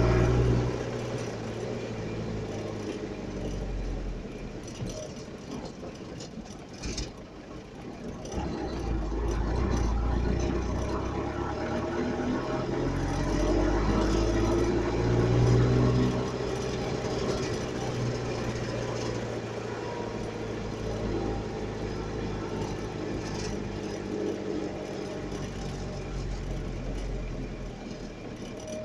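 Vehicle engine running, its pitch rising to a peak about fifteen seconds in and then easing back down.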